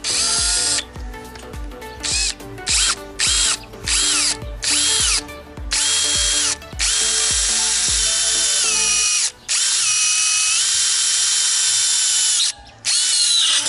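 Cordless 48VF Nanwei drill in low gear boring into a thin steel pipe with a small bit. The motor whines in a string of short trigger pulls, each rising in pitch as it spins up, then runs for longer stretches near the end, its pitch stepping down as the bit bites into the steel. The bit gets through easily.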